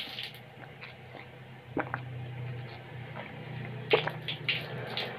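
A few light knocks and clicks of kitchen things being handled, over a low steady hum.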